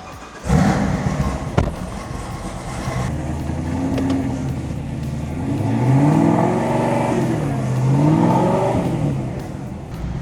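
Chevrolet Camaro ZL1's supercharged V8 starting with a sudden loud burst about half a second in, then running and revving, its pitch rising and falling twice as it accelerates.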